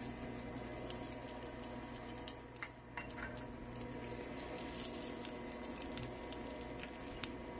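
Egg mixture sizzling in a frying pan for a rolled omelette: a steady hiss with scattered small pops and crackles over a faint steady hum.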